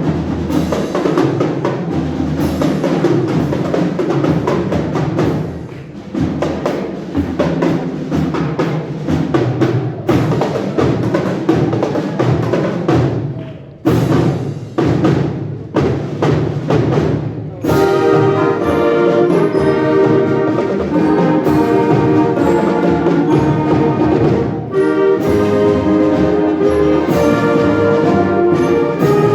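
Wind band playing live: a rhythmic passage with many sharp, clipped strokes, then about 17 seconds in the band moves into full, held chords.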